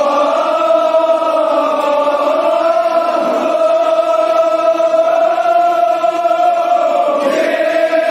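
Voices chanting a mournful lament in long, drawn-out held notes, the pitch wavering slowly.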